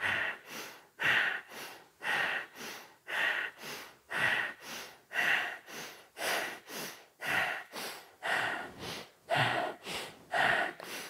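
Breath of fire: rapid, rhythmic breathing through the nose with equal inhale and exhale strokes, about two a second.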